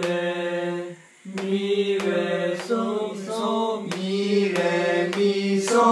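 Unaccompanied solo voice singing a solfège sight-singing exercise, one held note after another with a new note about every half second and a short pause about a second in.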